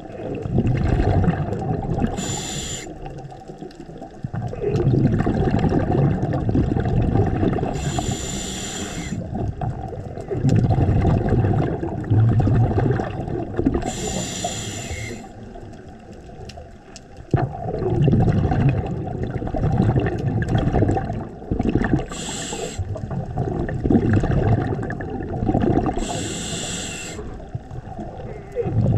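Scuba diver breathing through a regulator underwater: five short hisses of inhalation, each followed by several seconds of bubbling as the exhaled air bubbles out.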